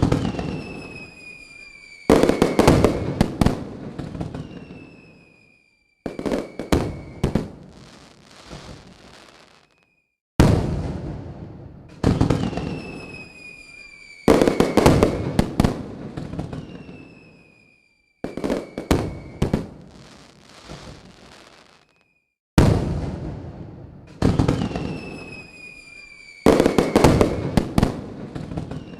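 Fireworks going off: sudden booms that each fade away over a few seconds, clusters of rapid crackling, and a whistle that falls slightly in pitch. The same run of booms and crackles repeats about every twelve seconds.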